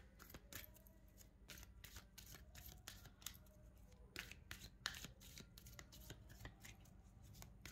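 Faint shuffling of a deck of tarot cards by hand: a run of soft, irregular card clicks and flicks.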